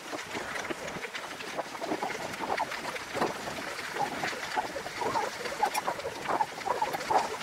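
Bicycle jolting along a gravel path: irregular rattling and clattering from the bike, with tyres crunching on the gravel.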